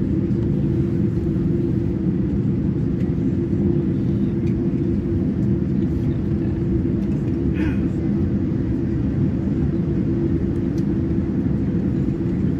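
Steady low rumble and hum of a Boeing 787-9 heard from inside the passenger cabin as the airliner rolls on the ground, its engines at a constant low power with no spool-up.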